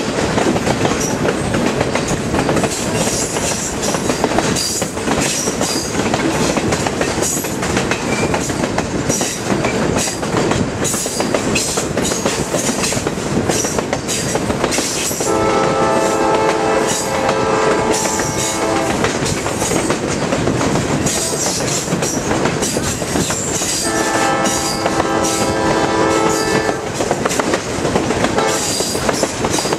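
Passenger train running on the rails with steady wheel noise and clickety-clack over the rail joints. The locomotive's multi-note horn sounds a long blast about halfway through, a shorter one a few seconds later, and a third starting at the very end.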